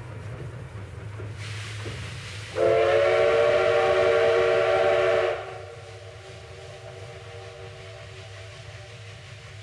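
Steam locomotive whistle over a steady low rumble. A hiss of steam starts about a second and a half in, then a loud blast of several tones sounding together for about three seconds, which drops to a much quieter held tone.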